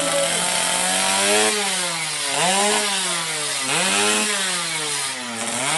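Drag-bike motorcycle engine revved up and down with the throttle, its pitch rising and falling about three times.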